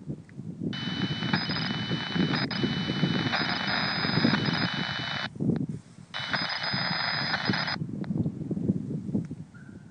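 Radio scanner's speaker playing an unidentified digital data transmission: a harsh buzzing signal with steady high tones that switch on and off, in two bursts of about four and a half seconds and just under two seconds, over a rapid crackle.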